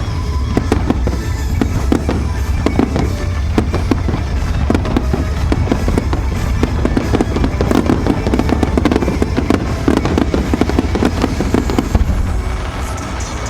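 Fireworks crackling: a dense run of many sharp cracks and pops in quick succession, thinning out near the end, with music playing in the background.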